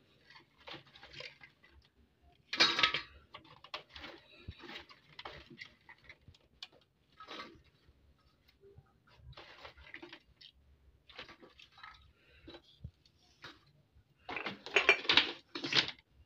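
Green cowpea pods rustling and clattering as a hand picks them from a plastic basket and drops them into a stainless steel bowl, in irregular bursts. Louder clatters come about three seconds in and near the end.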